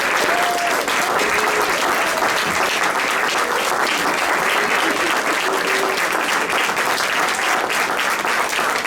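Audience applauding steadily, a dense patter of many hands clapping, with a few voices faintly heard through it.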